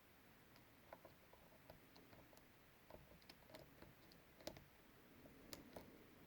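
Faint, irregular small clicks of a hook pick and tension tool working the pins inside a brass Yale pin-tumbler padlock, the loudest about four and a half seconds in.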